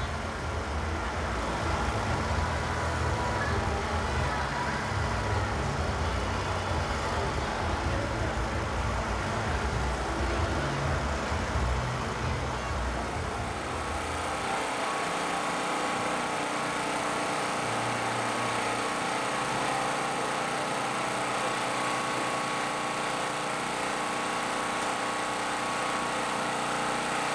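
Steady background din among festival food stalls, with a mechanical, engine-like hum. A heavy low rumble in the first half drops away about halfway through, leaving a steadier, higher hum.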